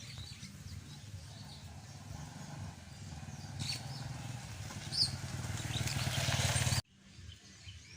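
A motor vehicle engine running with a low, steady hum that grows louder, along with a rising hiss, while birds chirp. The sound cuts off abruptly shortly before the end, after which only quieter bird chirps remain.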